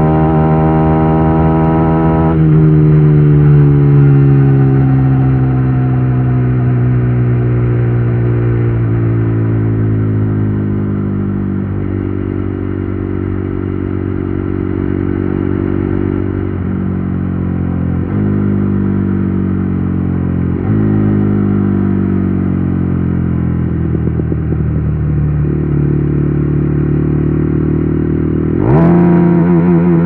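KTM Duke 390 Gen 3 single-cylinder engine through an Akrapovic exhaust, decelerating from high speed. About two seconds in the throttle closes and the engine note falls steadily, stepping back up in pitch twice as the rider downshifts. Near the end the revs rise sharply as the throttle opens.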